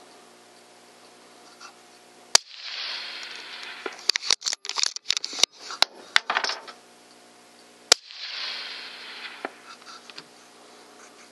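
Two rifle shots from a Remington 700 bolt-action in .243 Win, about five and a half seconds apart. Between them comes a quick run of metallic clicks and clatters: the bolt being worked to chamber a second round.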